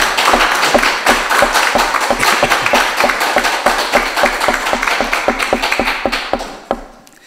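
Congregation applauding, a dense crowd of hand claps that dies away about six to seven seconds in.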